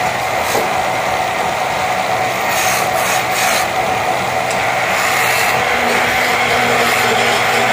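Motor-driven wood lathe running steadily while a hand-held tool cuts into a spinning wooden handle blank: a continuous scraping hiss over a low motor hum.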